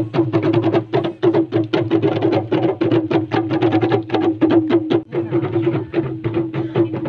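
Drum music: quick, even drumbeats over a steady ringing tone.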